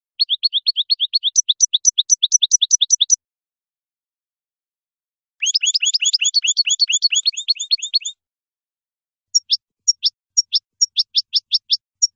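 European goldfinch (colorín) singing in three separate bouts of rapid repeated high notes. The first is a fast run of short falling notes that steps up in pitch about halfway through; the second, a few seconds later, is a denser twittering run; the last is slower, with spaced notes about three a second. Clean silence separates the bouts.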